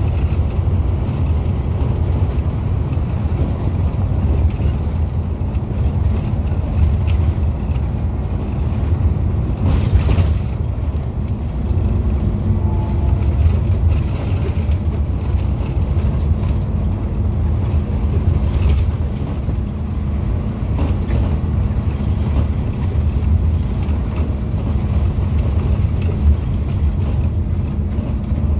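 Scania OmniCity bus heard from inside the passenger saloon while on the move: steady low engine drone and road noise, with a brief knock about ten seconds in.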